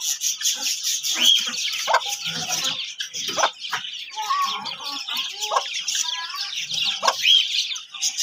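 Hen clucking in short calls every second or so, over a steady high chorus of small birds chirping.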